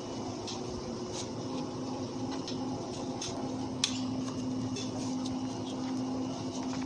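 Block of cheddar cheese being grated on a handheld grater with a metal blade, in short irregular scraping strokes. A steady low hum runs underneath.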